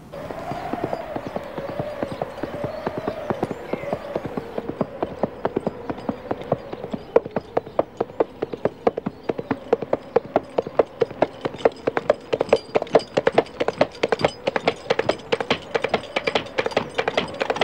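Coconut halves banged together to imitate a horse's hoofbeats, a steady clip-clop that grows louder as it approaches. A faint, steady drawn-out tone sounds underneath.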